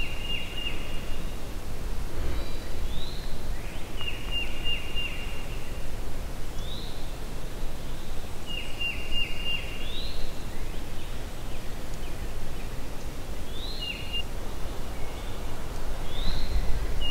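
A songbird singing repeatedly: each phrase is a short rising note followed by a quick trill held at one pitch, every two to four seconds. A steady low rumble runs underneath.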